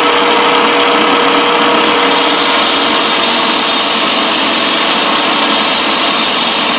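Tile saw's motor and diamond wheel running steadily while a tungsten welding electrode, held in a cordless drill, is ground to a point against the wheel. From about two seconds in a high, thin grinding hiss joins the motor noise.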